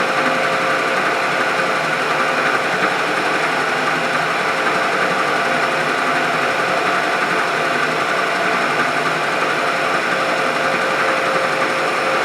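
Milling machine running steadily while it takes a cut: an even machine noise with a constant tone through it and no breaks.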